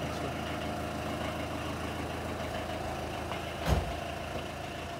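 A steady low mechanical hum with one thump about three and a half seconds in, which fits a car door being shut.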